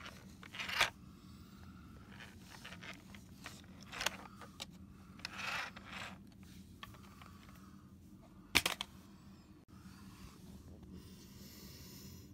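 Handling noises from a plastic bee-styled RC toy car being turned and moved about: rustling scrapes and crinkles, a few louder scuffs, and a sharp knock about eight and a half seconds in.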